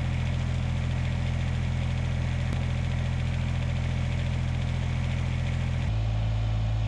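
A steady, idling engine-like hum with a strong low drone, shifting abruptly to a different pitch pattern about six seconds in.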